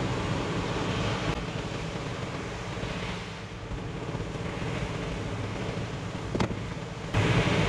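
Wind on the microphone over the wash of beach surf, with a single short click about six and a half seconds in.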